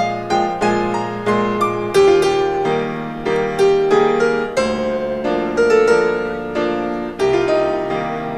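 Background music: solo piano, with notes struck about twice a second over sustained chords.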